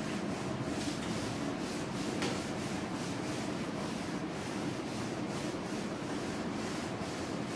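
Blackboard eraser rubbed over a chalkboard in repeated back-and-forth strokes, wiping off chalk writing.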